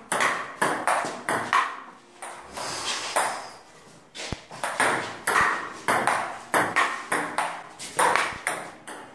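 Table tennis ball clicking off the paddles and the table in a rally, two or three sharp clicks a second, with a short break about two seconds in before the rally picks up again about four seconds in.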